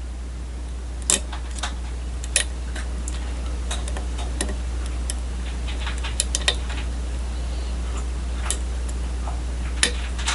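Small irregular metallic clicks and taps of a lock pick and tension wrench working in a challenge lock's keyway, over a steady low hum.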